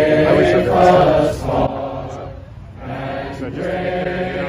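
A crowd singing a hymn together, with a short break between lines a little past halfway.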